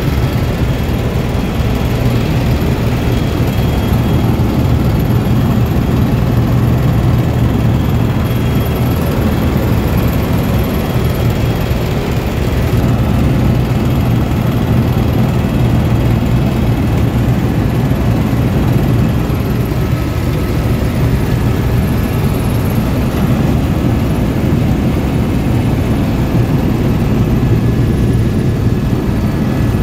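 Helicopter engine and rotor noise heard from inside the cabin in flight: a steady low drone with faint steady higher tones, unchanging throughout.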